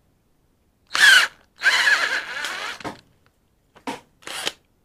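Cordless power drill boring a hole in the bottom of a tripod head. The motor runs in two bursts about a second in, rising and falling in pitch, then gives two short blips near the end.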